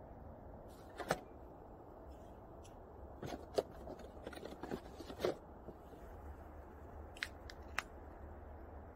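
Cardboard beer box being handled and aluminium cans pulled out of it and set down in snow: a scattered run of crinkles, scrapes and knocks, thickest in the middle. Two sharp clicks come near the end.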